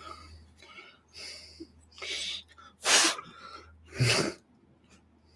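Four short, breathy puffs of air from a person about a second apart, the loudest about three seconds in, over a faint low hum.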